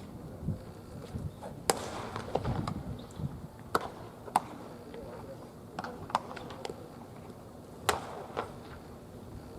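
Baseball pitches smacking into a catcher's mitt during warm-up throws: two sharp pops about six seconds apart, with fainter knocks and smacks between.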